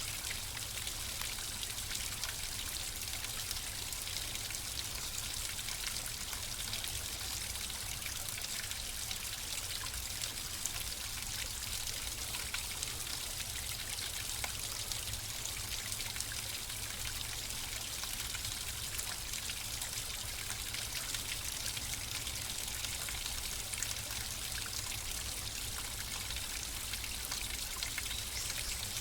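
Flowing water running steadily: a constant, hissy rush of water with many small splashes and trickles, unchanging throughout.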